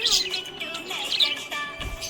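Budgerigars chirping and warbling in a dense, rapid chatter of short, sliding high notes. A brief low thump comes near the end.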